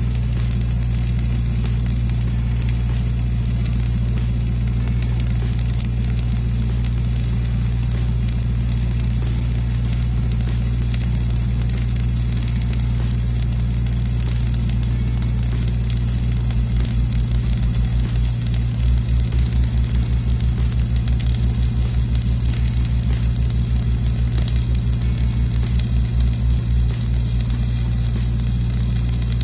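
Gas-shielded flux-cored arc welding on steel pipe: the arc crackles and sizzles steadily over a steady low hum. From about halfway through until near the end, a low throb pulses about four times a second.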